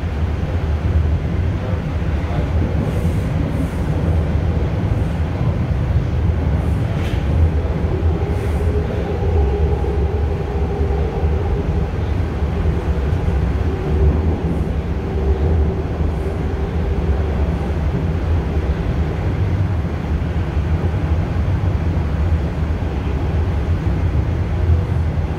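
Toronto Rocket subway train (Bombardier-built) running at speed through a tunnel, heard from inside the car: a steady, loud rumble of wheels on rail. A faint whine comes in for several seconds midway.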